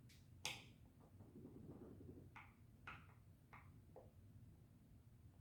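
Faint, light clicks and taps of small plastic toy gears and parts being handled, about six in all, the loudest about half a second in.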